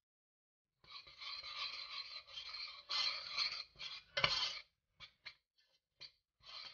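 A metal spoon stirring dry flour and spices in a stainless steel saucepan: steady scraping for a few seconds with a knock against the pot, then a few short scrapes and clinks.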